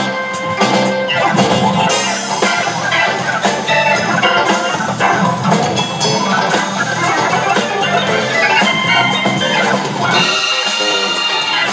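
Band music with a drum kit keeping a steady beat under bright melodic lines. Near the end the bass drops away under a held high chord.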